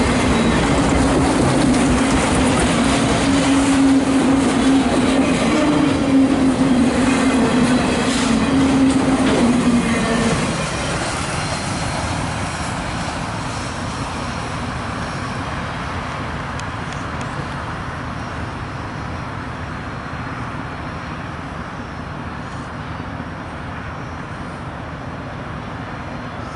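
Loaded autorack freight cars rolling past close by: a heavy rumble and clatter of wheels on rail with a steady droning tone and a few clanks. About ten seconds in, the last car goes by and the sound drops suddenly, then the train's rumble fades slowly as it moves away.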